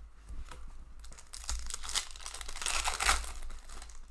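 Stack of hockey trading cards rustling and sliding against each other as hands flip quickly through them, in a run of crinkly bursts that is loudest about three seconds in.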